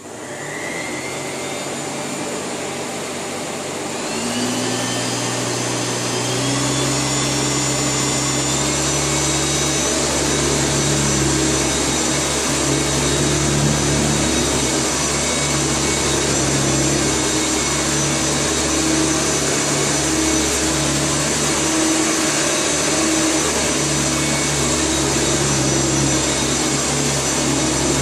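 Hoover Turbomaster Electronic U5080 upright vacuum cleaner switching on, its motor whining up to speed with rising pitch over the first few seconds. It steps up louder about four seconds in, then runs steadily.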